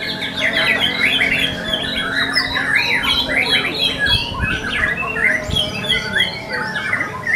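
White-rumped shama (murai batu) singing a continuous, rapid stream of varied whistled and harsh phrases, quickly rising and falling in pitch.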